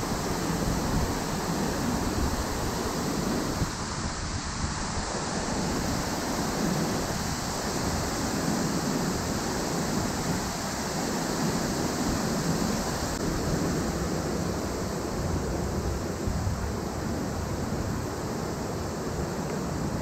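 Steady rush of a waterfall pouring into a rock plunge pool, a continuous even roar of falling water.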